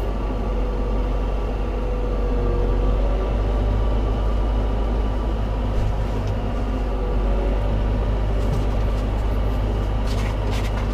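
Tractor engine running steadily at low speed while towing a loaded flatbed trailer through rough ground, with a few light knocks near the end.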